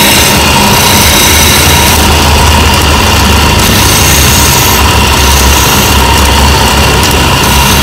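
Motor-driven wood lathe running, a hand chisel cutting into a spinning length of wood being turned into a furniture leg. A steady motor hum runs under the hiss of the cut.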